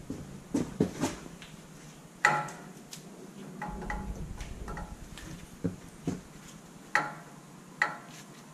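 Metal clinks and knocks from a brake caliper, its new pads and spring retainers being handled as the pads are squeezed in against the springs and the caliper is worked down over them. About seven sharp separate clinks, some ringing briefly, the loudest about two seconds in.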